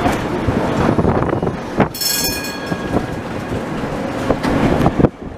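A tram rolling along street track, with a steady rumble and wheels clicking now and then over rail joints. A brief high ringing about two seconds in. The sound cuts off suddenly near the end.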